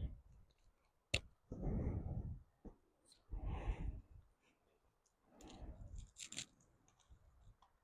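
Handling noise from fitting a strap-on vest onto a plush toy: several short rustles and a sharp click about a second in.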